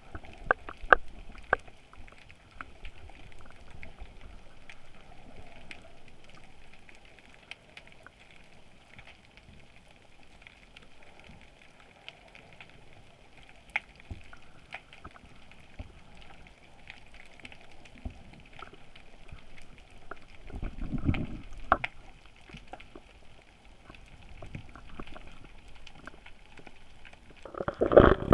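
Underwater ambience picked up by a camera on a rope: a steady crackle with many scattered small clicks. A low rushing water noise swells a little past two-thirds through, and a louder burst of water noise comes right at the end.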